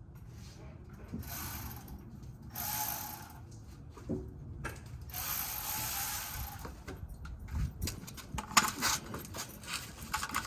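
Cordless power ratchet running in short bursts of whirring, then a fast run of ratchet clicks. It lacks the torque to turn the exhaust bolts because its battery is low.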